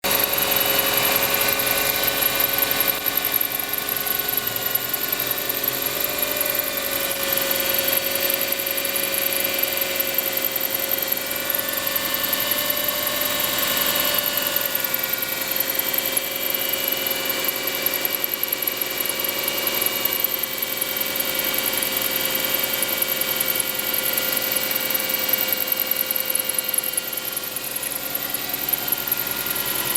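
Engine running steadily at idle with a steady whistle over it.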